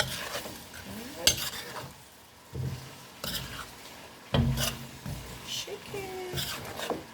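A utensil stirring and scraping in a pot of frying cabbage and chicken, with a few sharp clanks against the pot and a faint sizzle underneath.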